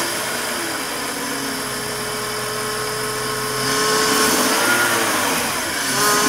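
BMW 328i E46's straight-six engine running steadily just after being started, breathing through a newly fitted K&N cone air filter and chrome intake tube. It starts and runs, so the intake install works. It gets a little louder about four seconds in.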